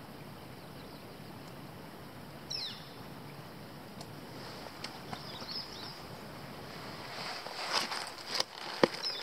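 Steady open-air background with a bird's short chirp about two and a half seconds in and another near five seconds. From about seven seconds, rustling of a nylon backpack and jacket as the pack is shrugged off, with one sharp click, the loudest sound, near the end.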